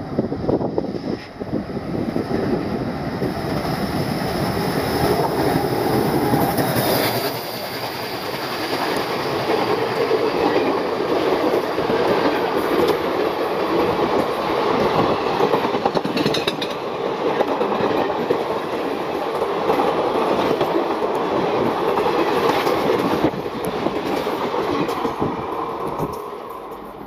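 Indian Railways diesel-hauled passenger train passing close by at speed: the locomotive's engine running heavily at first, then the steady rattle and clickety-clack of ICF coach wheels over the rail joints, with a brief wheel squeal or two. The noise eases off over the last few seconds.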